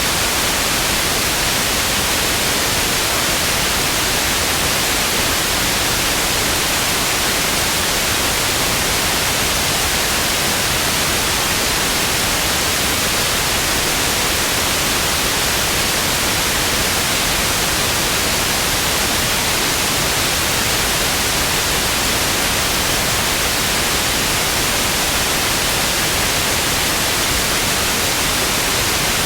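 TV static: a steady, loud hiss of white noise with no change throughout.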